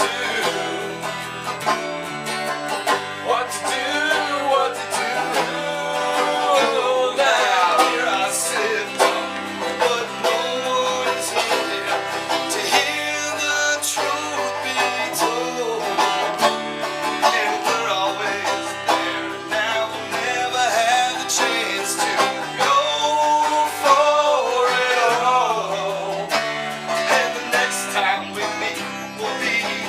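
Country or bluegrass-style music with banjo and guitar, and what may be a singing voice.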